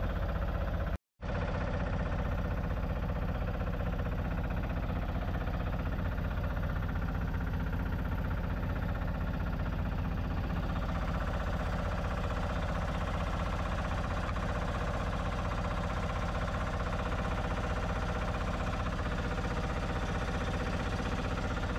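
Fishing boat's engine running steadily at an even pace, with a momentary dropout about a second in.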